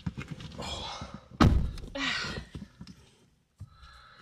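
A door shut with a single heavy thunk about one and a half seconds in, with rustling and handling noise around it.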